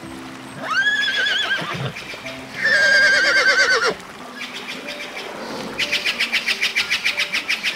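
A horse whinnying twice, each call rising then quavering, the second louder. Near the end, a fast chirping trill of about six pulses a second.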